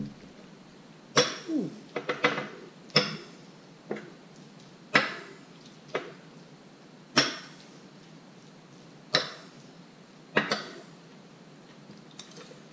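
A metal spoon and fork clinking against ceramic bowls and plates while eating, about nine sharp clinks with a short ring, spaced irregularly a second or two apart.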